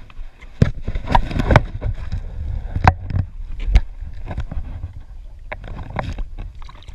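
A run of uneven knocks and thumps against a small fishing boat's hull, with water sloshing and splashing as a largemouth bass is held in the water and released.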